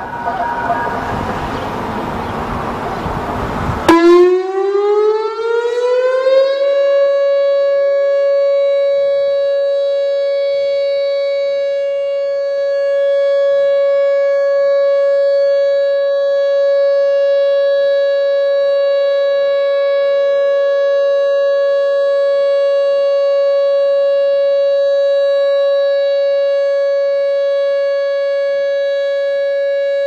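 Whelen 2910 electronic tornado warning siren sounding its weekly test. After about four seconds of loud rushing noise, its tone rises in pitch over a couple of seconds, then holds one steady, loud tone.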